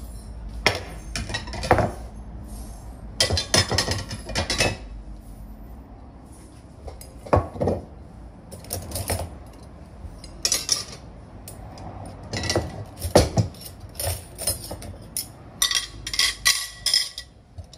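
Kitchen dishes and cutlery being handled: a series of short clinks and clattering knocks, some in quick clusters, with a ringing clink near the end.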